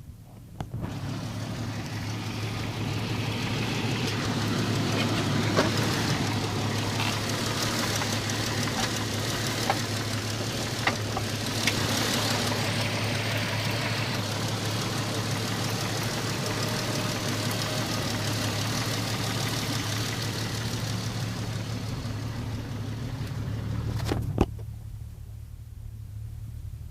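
Jeep Cherokee XJ running and driving off-road: a steady low engine hum under a loud rush of vehicle noise with a few sharp knocks. The rush starts suddenly about a second in and cuts off abruptly near the end, leaving only the low hum.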